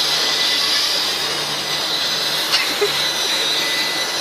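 Small quadcopter's electric motors and propellers whirring in a steady high-pitched whine as it flies low over the ground.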